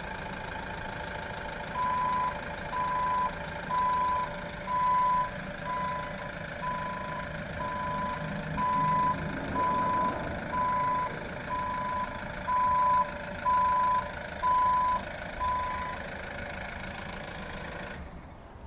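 A vehicle's engine running steadily while its reversing alarm beeps about once a second, some fifteen beeps. The engine noise drops away near the end.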